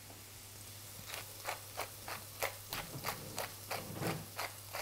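Hand pepper mill being twisted, grinding pepper in a steady run of short crunching strokes, about three a second, starting about a second in.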